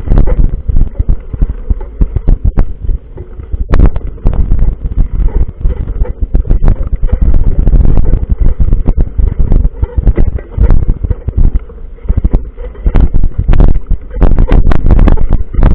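Loud, gusty wind buffeting and rumble on a camera microphone carried on a moving mountain bike, with frequent sharp knocks and rattles.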